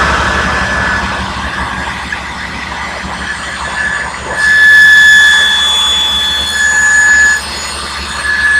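Table saw running, its blade cutting a dado in the board in repeated passes; a high, steady whine swells loud about halfway through, again briefly, and once more near the end as the blade bites into the wood.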